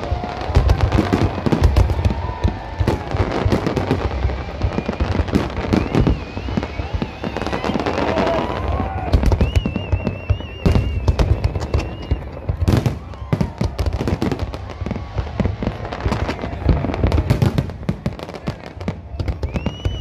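Fireworks display: a dense, unbroken run of bangs and crackles from aerial shells and sparkling fountain effects, many reports a second.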